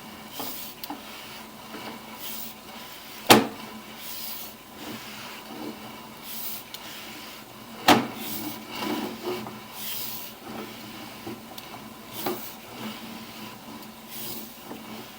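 Irregular rubbing and clattering of sewer-inspection camera gear being handled, with two sharp knocks about three and eight seconds in, over a faint steady electrical hum.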